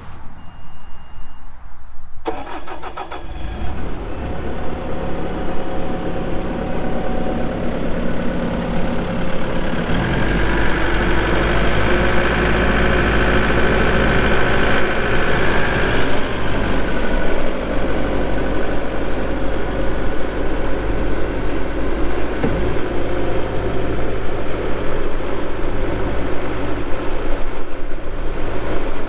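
Bobcat S770 skid steer's diesel engine cranking and starting about two seconds in, after a short beep, then running steadily. From about ten seconds in it runs louder and deeper, with a high whine for several seconds.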